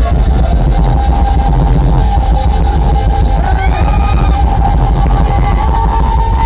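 Live concert music through a phone's microphone: heavy, overloaded bass under a held high note that steps up slightly near the end, with crowd voices calling out midway.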